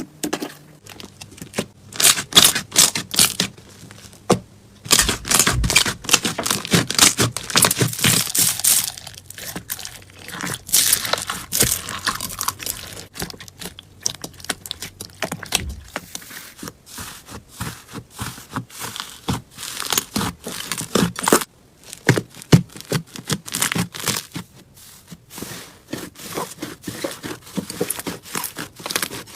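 Slime being squeezed, pressed and stretched by hand, giving a dense, uneven run of sharp crackling and popping clicks with short lulls between handfuls.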